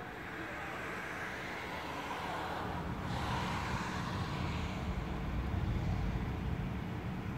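A vehicle passing on the street, its noise swelling and falling away about three seconds in, over a steady low traffic rumble.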